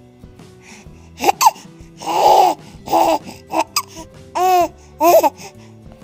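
Baby squealing and laughing in a string of short, high bursts starting about a second in, over quiet background music.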